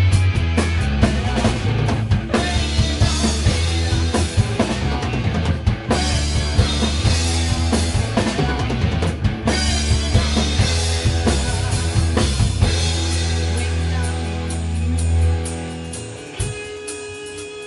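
Rock band playing an instrumental passage: distorted electric guitars, bass guitar and a drum kit with bass drum and snare, loud and driving. About fifteen seconds in the band drops to a quieter section, with a held guitar note over light cymbal ticks.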